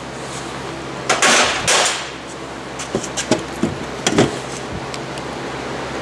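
Tool and part handling: a rustle lasting about a second, then a handful of light knocks and clicks a few seconds in, over the steady hum of a shop heater.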